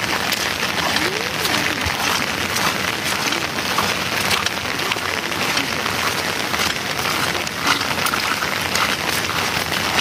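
Steady rain pattering on a surface, a dense hiss of many small drop ticks that holds even throughout.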